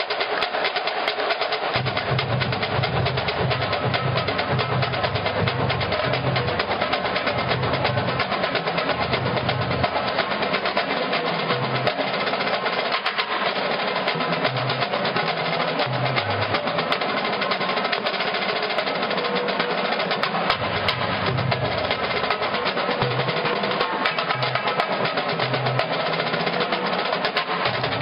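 Marching band drumline playing: snare drum rolls and rapid strikes, with short low bass drum notes coming in from about two seconds in.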